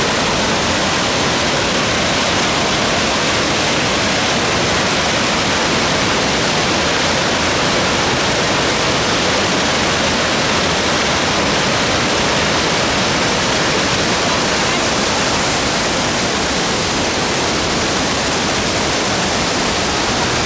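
Steady rush of water pouring down the artificial waterfall and rapids of a river rafting ride.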